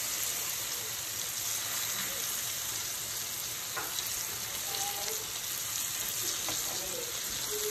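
Flour-coated chicken strips sizzling steadily in hot oil in a frying pan, with a fork turning them and clicking lightly against the pan a couple of times.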